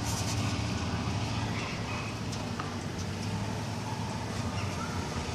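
Snowplow truck's engine running steadily with a low hum.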